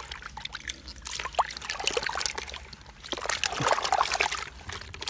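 Water splashing and trickling in quick, irregular bursts as a keep net of live fish is handled.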